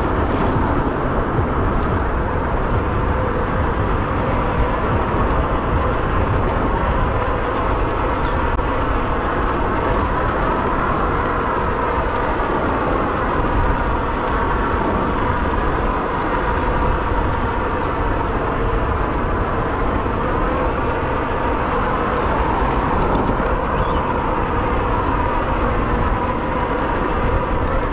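Riding noise of an e-bike on the move: wind buffeting the microphone and tyres rumbling over a bumpy surface. Under it runs a steady whine that rises and falls gently a few times.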